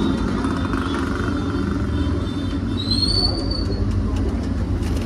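Steady low rumble of road traffic, with one short high whistle that rises and falls about three seconds in.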